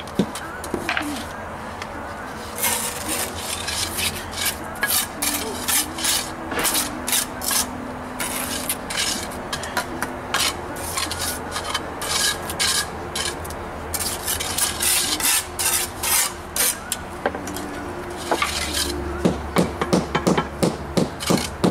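Steel trowels scraping and rubbing wet cement mortar into the joints between flagstones, in many short, irregular strokes with a few brief pauses.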